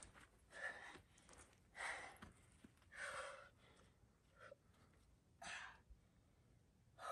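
A climber's short, sharp breathy exhales of effort while pulling through hard bouldering moves, about five puffs roughly a second apart.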